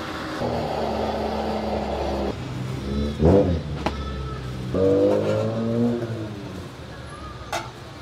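A motor vehicle's engine revving on the street, its pitch sweeping down and back up about three seconds in and rising again around five seconds in, with a couple of sharp clicks.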